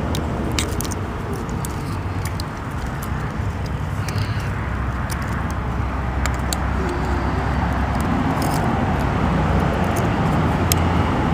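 Scattered small metallic clicks and taps from the parts of a double-cylinder gate deadbolt being worked by hand. They sit over a steady low background rumble.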